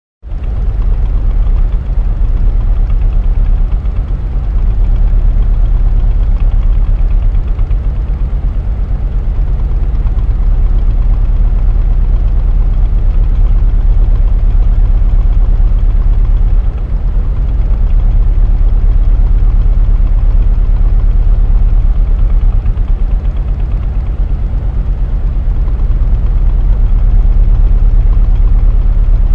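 An engine idling with a deep, bass-heavy rumble, steady throughout with a fast, even pulsing.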